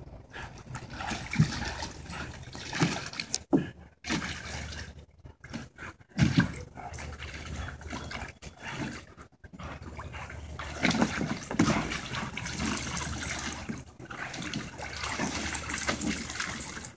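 Huskies splashing and sloshing water in a plastic kiddie pool, in irregular bursts with a few louder splashes.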